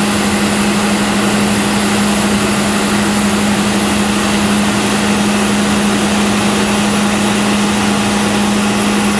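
John Deere 9770 combine harvester running steadily: a constant drone with a strong, even hum.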